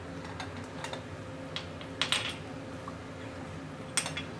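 A spoon knocking and scraping against a bowl in a few short clicks, the loudest about two seconds in and another near the end, over a steady low hum.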